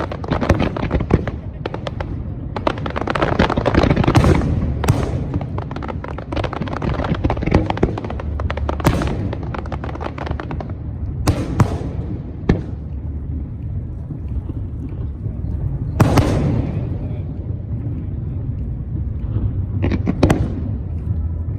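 Aerial fireworks going off: a dense run of crackling and booming shells for the first several seconds, then single loud shell bursts every few seconds, each trailing off in a short rumble.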